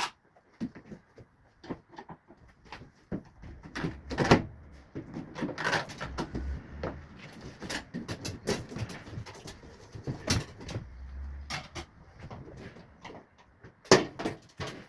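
Irregular clicks, knocks and clatter of hand work on a Siemens washing machine being taken apart to remove its tub, with a few louder knocks.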